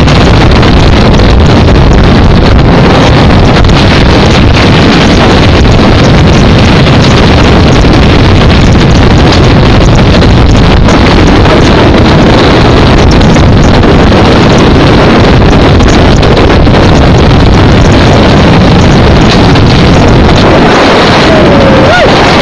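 Heavy wind buffeting on the microphone of a vehicle driving fast over open desert, mixed with the vehicle's engine and tyre noise, loud and unbroken. A short rising pitched tone, like a whistle or a cry, sounds near the end.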